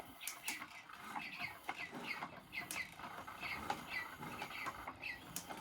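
A rapid series of short, high, bird-like chirps, each falling in pitch, a few each second, mixed with sharp clicks.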